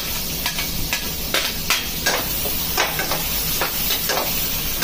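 Chopped onion and capsicum sizzling in a steel kadhai while a perforated steel ladle stirs them, with repeated irregular scrapes and clinks of metal on metal.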